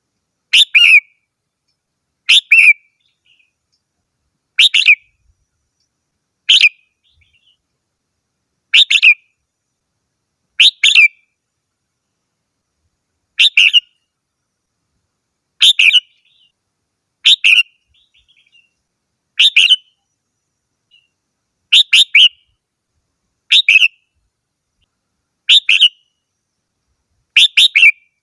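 Red-whiskered bulbul singing short bright phrases, one about every two seconds, with clean silence between them.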